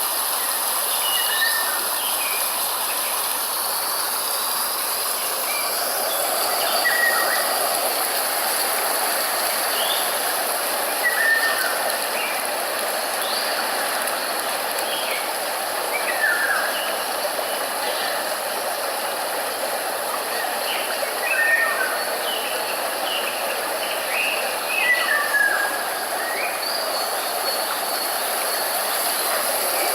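Nature ambience: a steady rushing hiss with short bird chirps scattered throughout, some coming in quick clusters.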